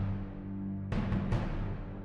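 Dramatic background music with steady low tones, and three sharp percussion hits in quick succession about a second in.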